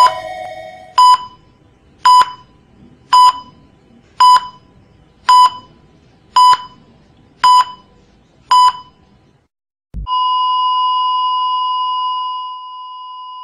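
Heart-monitor beeping sound effect: about nine short electronic beeps at one pitch, roughly one a second, then a soft thump about ten seconds in and a long unbroken tone at the same pitch, the flatline that signals the heart has stopped. The flatline drops in level near the end.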